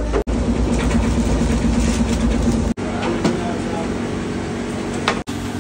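Steady machinery hum in a working bakery, with voices in the background. The sound changes abruptly three times: about a quarter second in, near three seconds, and a little after five seconds.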